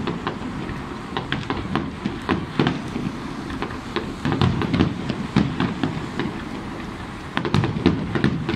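Aerial fireworks display: a steady run of distant bangs and crackles over a low rumble, growing denser about halfway through and again near the end.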